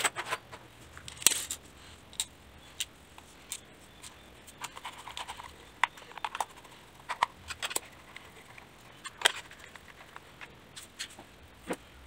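Hard plastic parts of a toy RC stunt car being handled and turned over in the hands: irregular small clicks, taps and light rattles, with a few sharper knocks.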